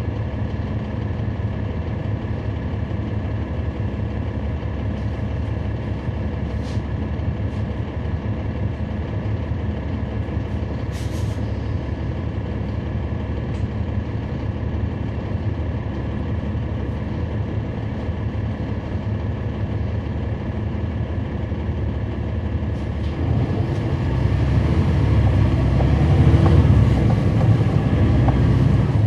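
Cummins ISL9 diesel engine of a 2011 NABI 40-foot transit bus running steadily, heard from on board, with a brief hiss about eleven seconds in. About 23 seconds in the engine grows louder as the bus accelerates.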